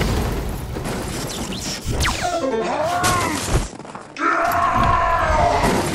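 Cartoon battle soundtrack: music under crashing and shattering sound effects, with pitched effects that swoop up and down. It drops briefly just before four seconds in, then comes back loud.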